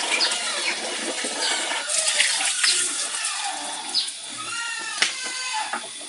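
Birds chirping: short, high calls falling in pitch, about one a second, over a steady wash of running or splashing water.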